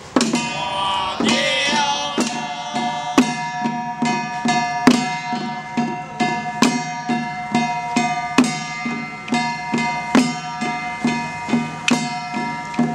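Long-handled ritual hand drums beaten in a quick, steady rhythm, with a loud sharp crack about every second and a half to two seconds, over a melody of long held notes.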